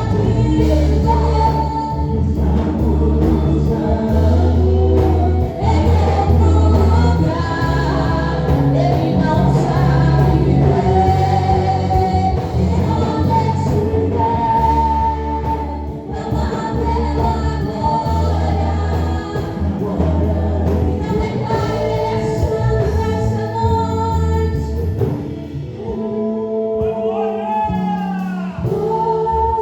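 Gospel praise song with several voices singing over a band with a strong, steady bass line. The bass drops away near the end, leaving mostly the voices.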